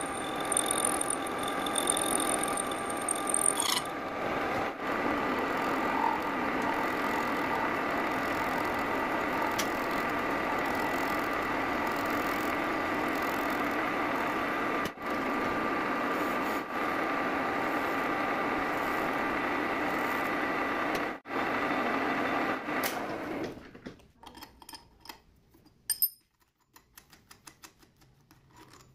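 Metal lathe running steadily, its motor and gearing giving a steady hum with a whine, while a lathe tool cuts a small turned part; a thin high whine sits over it for the first few seconds. About three-quarters of the way through the lathe sound stops. Light clicks and one sharper tick follow as the finished part is handled.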